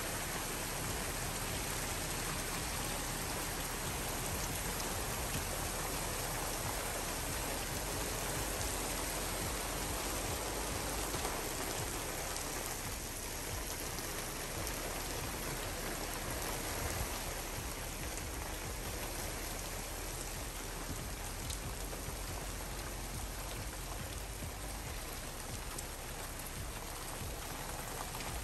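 Steady downpour of rain falling and pattering on the ground and surfaces.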